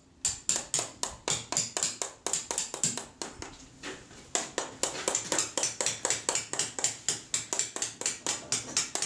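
Round wooden mallet striking a chisel to cut limestone by hand: quick, even blows about three to four a second, with a brief pause just past the middle.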